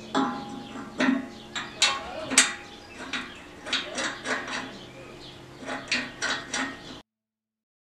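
Metal clinks and taps of a bolt and the steel mounting bracket being handled while a hydraulic gear pump is fitted to a press frame: an irregular string of sharp knocks. The sound cuts off abruptly about seven seconds in.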